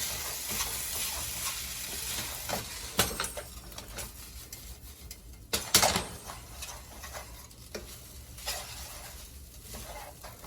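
Fried rice with vegetables being stirred in a hot pan with a spatula, sizzling steadily, with scraping and sharp knocks of the spatula against the pan, loudest about three seconds and six seconds in.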